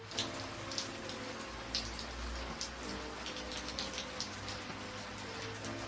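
Steady rain falling, with a constant hiss and many distinct drops splashing close by at irregular moments.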